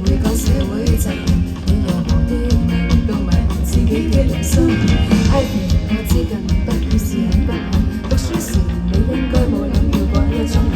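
Live indie band playing an instrumental passage: electric guitar, bass and drums with steady cymbal strokes.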